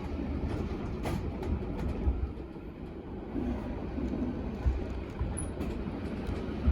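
Typhoon wind blowing in strong gusts, a steady low roar rising and falling, with gusts buffeting the microphone.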